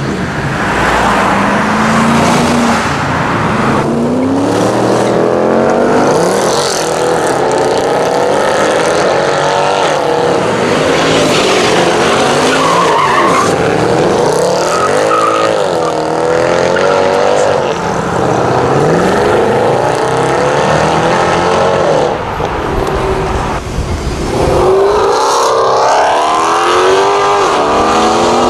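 Mercedes-AMG car engines revving hard and accelerating, their pitch climbing and dropping back again and again as the cars pull through the gears.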